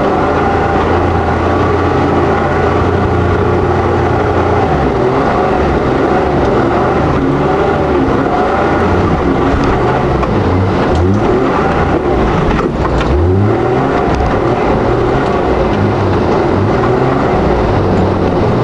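Four-wheel drive's engine running under load through mud, its note rising and falling with the throttle, with several quick revs about two-thirds of the way through.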